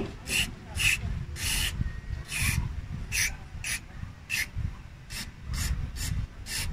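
Aerosol can of contact cleaner sprayed through its red extension straw into a removed idle air control valve, in a dozen or so short hissing bursts, a few a second, to clean oil out of the valve.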